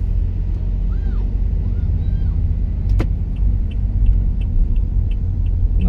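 Steady low rumble of a car's engine and tyres on the road, heard inside the cabin. A sharp click about halfway through is followed by a run of light, even ticks, about three a second.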